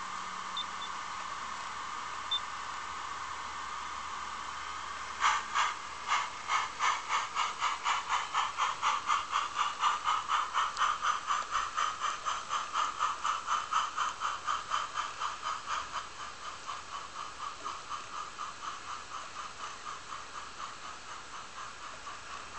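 Garden-scale model steam locomotive standing with a steady hiss, then setting off about five seconds in with rhythmic exhaust chuffs. The chuffs quicken to about four a second and grow fainter as it runs away along the track.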